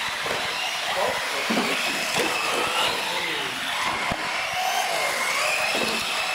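Several radio-controlled UTV trucks racing together: the overlapping whine of their electric motors rises and falls with the throttle over the rush of tyres on concrete. A sharp knock comes about four seconds in.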